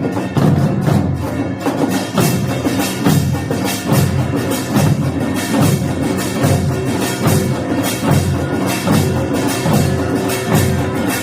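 Korean samul nori percussion ensemble playing: a fast, steady stream of drum beats from the janggu and buk, with the metallic clanging of small gongs on top.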